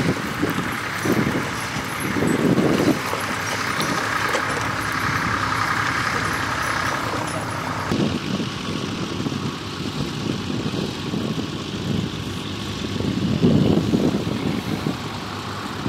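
Vintage tractor engines running in the field, a steady mechanical rumble with uneven swells. The sound changes abruptly about halfway through.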